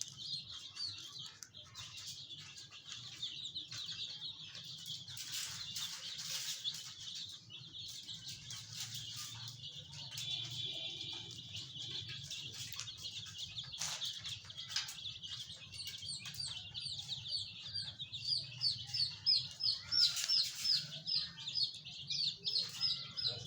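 Many chicks peeping together: a dense run of short, high, falling cheeps that overlap. They grow louder and more rapid over the last several seconds.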